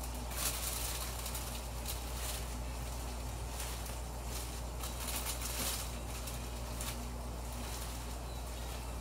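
Plastic slow cooker liner crinkling and rustling in short irregular spells as it is gathered and lifted around a cooked meatloaf, over a steady low hum.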